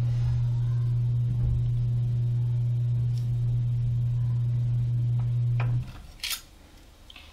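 A loud, steady low hum that cuts off suddenly about six seconds in. After it come a few small metallic clicks as pliers work a metal jump ring.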